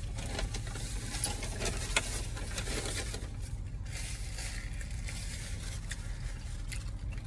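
Paper napkin crinkling and rustling as it is handled and wiped across the mouth, with a few sharp crackles, over a steady low hum.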